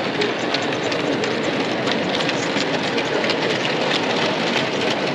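OO gauge model goods train running along the layout, its wheels clicking on the track, over steady background noise.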